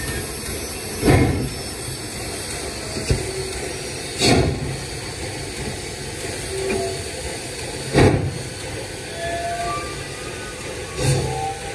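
Pere Marquette 1225, a 2-8-4 Berkshire steam locomotive, with a steady hiss of steam and a loud exhaust chuff every three to four seconds, four in all.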